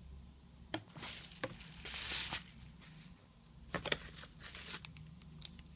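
Unboxing handling noise: scattered small clicks and taps as camera accessories and packaging are moved, with a brief rustle about two seconds in.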